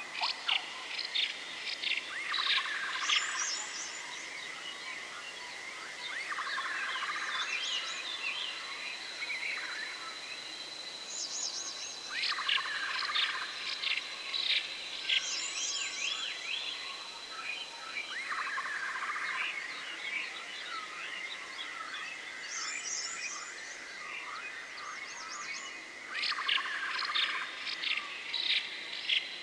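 Forest ambience of many small birds chirping and twittering in repeated flurries over a thin, steady high-pitched whine.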